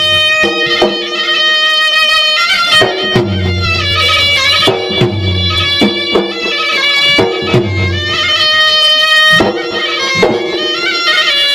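Traditional Maros gendang ensemble playing: irregular drum strokes under a loud, held wind-instrument melody that changes note every second or so.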